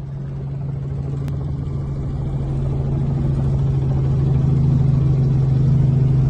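Helicopter engine and rotor noise heard inside the cabin: a steady low drone that grows gradually louder.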